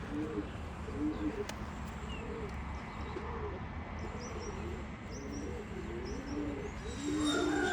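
Domestic pigeon cooing over and over, a steady run of low, rolling coos. Faint high chirps of small birds come in the middle.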